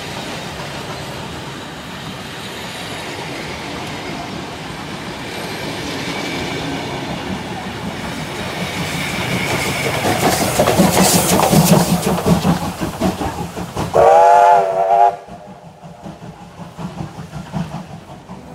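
Steam-hauled train passing close by: carriage wheels clattering over the rail joints, building as a steam locomotive passes with its exhaust chuffing. About fourteen seconds in, a steam whistle gives one blast of about a second, then the sound drops away.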